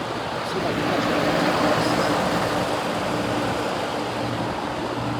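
Durastar heat pump outdoor unit running: a steady fan rush over a low, even compressor hum.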